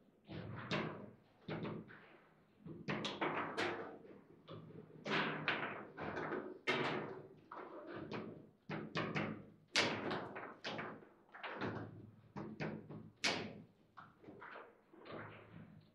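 Table football table being played: irregular knocks and clacks of the ball and the rods' figures and bumpers against the table, several in quick succession at times with short gaps between.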